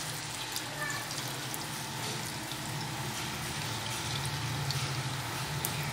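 Gram-flour pakoras deep-frying in hot oil: a steady sizzling hiss with small scattered crackles, over a low steady hum.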